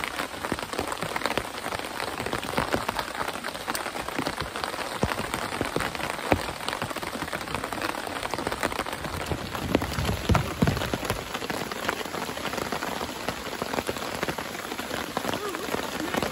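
Heavy rain falling steadily, a dense patter of drops striking the rain-fly tarp overhead.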